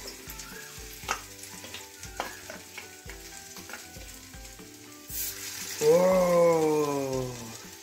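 Chicken pakoras frying in hot oil in a wok, a steady sizzle, with short clinks of a metal spoon against a steel bowl as battered pieces are scooped out. About six seconds in, a drawn-out falling tone with a few overtones is the loudest sound for about a second and a half.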